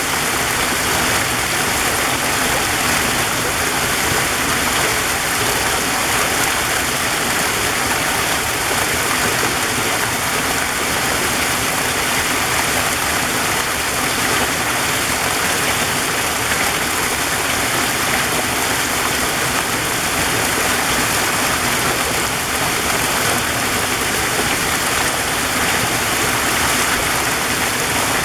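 Waterfall: a steady, unbroken rush of falling water with no pauses or changes.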